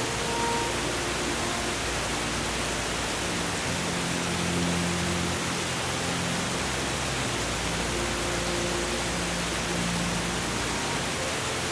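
A steady, even rushing hiss with soft held musical tones underneath that shift slowly from one to the next.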